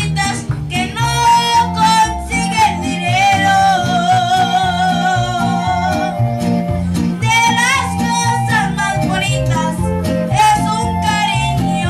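A boy singing a Mexican-style song into a microphone over instrumental accompaniment, holding long notes with vibrato.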